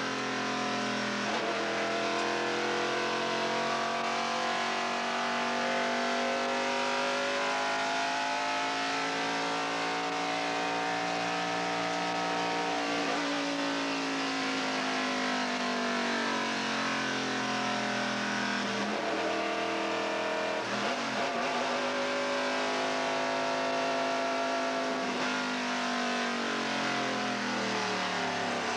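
NASCAR truck's V8 engine running hard at racing speed, heard from inside the cab over a steady rush of wind and road noise. Its pitch climbs slowly and then falls away in long sweeps, with a sharp dip about two-thirds of the way in, as the driver accelerates down the straights and lifts for the turns of the oval.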